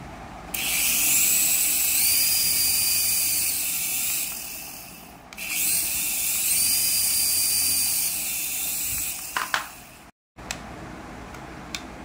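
A small coaxial toy RC helicopter's electric rotor motors whir at high pitch while it is held in the hand. They run twice for about four seconds each, and in each run the whine steps up in pitch partway through and then drops back. A couple of light clicks come near the end.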